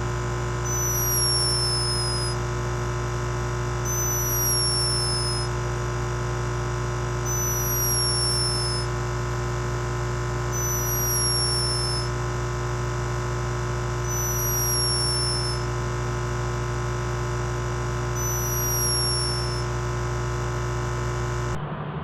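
Synthesized electronic drone of steady layered tones, with a short high falling chirp repeating about every three seconds, six times. It cuts off suddenly near the end.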